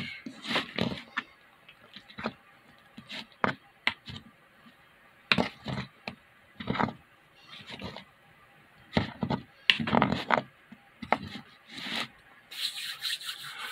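A person eating from a bowl with a spoon: irregular taps and scrapes of the spoon against the bowl, with chewing between them.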